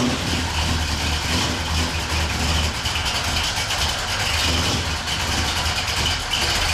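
1967 Buick Special's engine on a newly fitted Holley Terminator fuel injection, running steadily just after a cold start that it was helped through with a few pumps of the throttle. The owner puts its habit of stalling when cold down to EFI tuning not yet finished.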